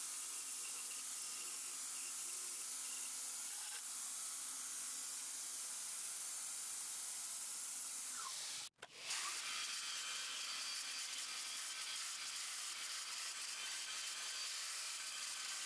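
Belt grinder running with steel held against the abrasive belt, a steady grinding hiss as scale is ground off a forge-welded plane blade. It cuts out for an instant about halfway through.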